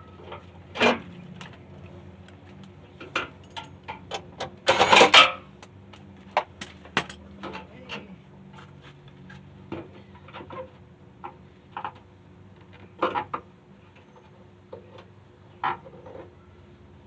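Scattered metallic clinks and knocks of tools and parts being handled during car bodywork, with a louder rattling clatter about five seconds in.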